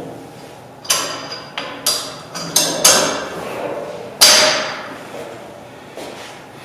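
Metal gym equipment being handled: a run of sharp metallic clanks with ringing, about six over three seconds, the loudest a little past four seconds in.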